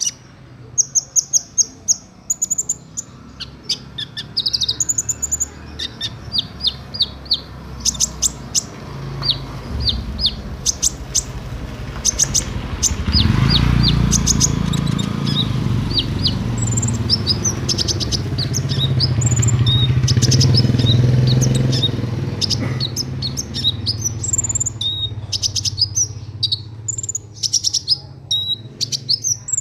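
Kolibri ninja sunbird singing: rapid, high-pitched chirps and short trills in quick runs, part of its song repertoire. A low drone swells up under the song about halfway through and fades again.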